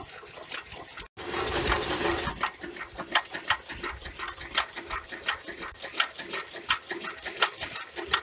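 Home-built alpha Stirling engine generator running steadily, its mechanism clicking evenly about three times a second. A short rush of noise comes about a second in.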